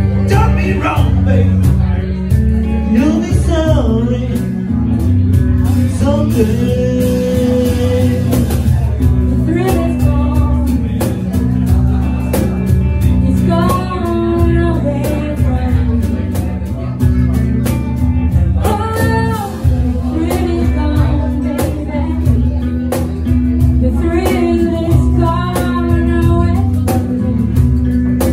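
Live blues band playing: a guitar and a cajón under sung vocals, with a male voice and a female voice singing into microphones.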